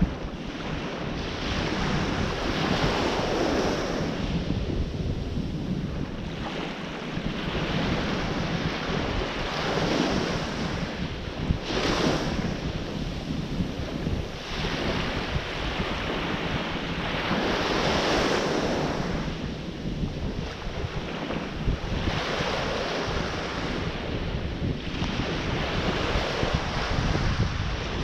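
Ocean surf breaking and washing ashore, swelling and falling away every several seconds, with wind rumbling on the microphone.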